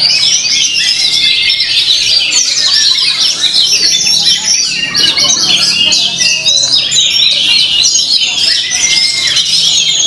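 Oriental magpie-robin (kacer) singing a dense, unbroken stream of quick chirps, trills and gliding whistles, with other caged birds singing over it.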